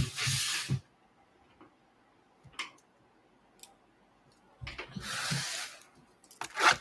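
Handling noise from a sealed cardboard trading-card box and a metal box cutter: a few faint clicks, then rustling and scraping about two-thirds of the way in, ending in a short, louder rasp.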